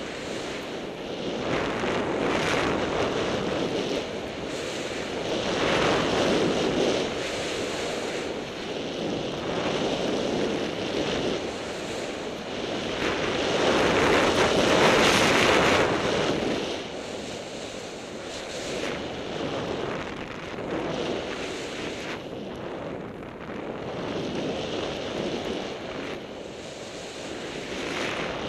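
Wind buffeting a mounted camera's microphone, with skis hissing through snow on a fast downhill run; the noise surges and fades in waves and is loudest about halfway through.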